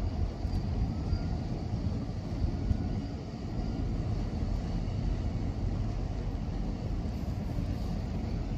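Steady low engine rumble with water noise, close to a large container ship under way.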